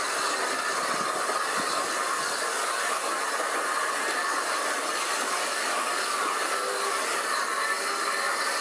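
Steady running noise of a steam-hauled heritage train heard from on board: an even mechanical rattle and hiss.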